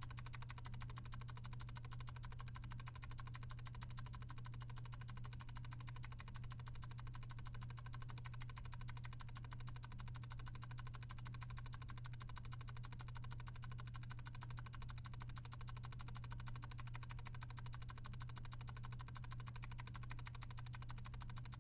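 Mechanical bathroom fan timer ticking rapidly and evenly over a steady low hum.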